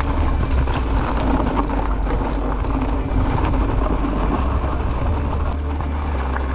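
Mountain bike being ridden along a dirt trail: a steady rumble of wind on the microphone, with tyre noise and light rattling from the bike over rough ground.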